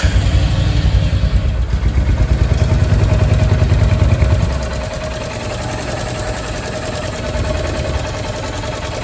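Royal Enfield 350 single-cylinder engine just started, running at a higher fast idle for about four seconds and then settling to a steady idle, with the tappet noise of excessive valve tappet clearance that needs adjusting.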